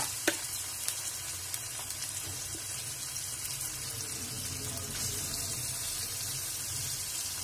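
Sliced onions and freshly added garlic paste sizzling in hot oil in a karahi: a steady frying hiss.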